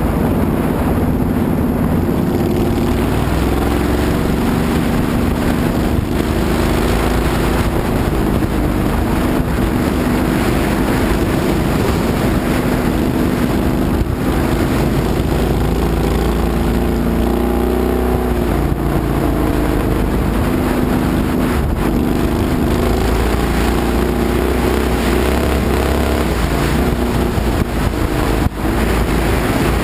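Vintage speedway midget car's engine heard from on board at racing speed, running steadily loud with its note shifting up and down as it laps the dirt oval, over a rush of wind on the microphone.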